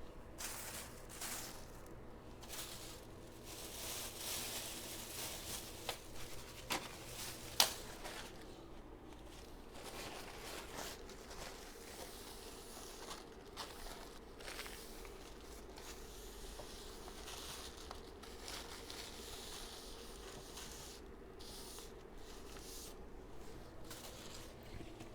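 Close-miked eating sounds of chocolate cake: soft wet chewing and mouth noises with scattered rustles and small handling ticks, and one sharp click about seven and a half seconds in.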